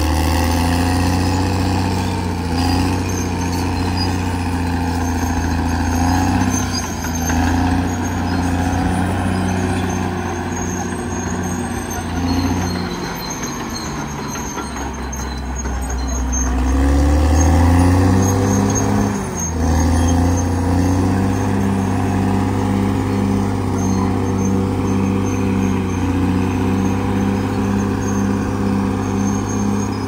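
Caterpillar D6R XL bulldozer's diesel engine running under load. It eases off around the middle, then rises to its loudest for a moment before settling into a steady run.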